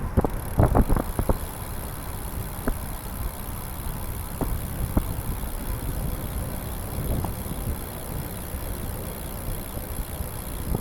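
Steady low road-and-wind rumble with a high hiss from a trike rolling on wet pavement, with a cluster of sharp clicks about a second in and a few single ticks after.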